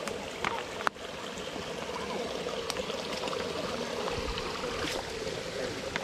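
Shallow rocky stream running and trickling steadily, with a single sharp knock about a second in.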